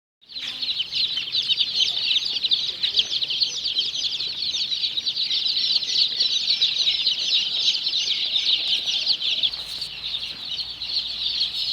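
A large brood of Sonali chicks peeping all at once, a dense, continuous high-pitched cheeping that starts abruptly just after the beginning.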